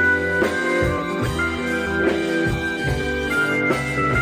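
Rock music with held guitar notes, bass and a steady drum beat.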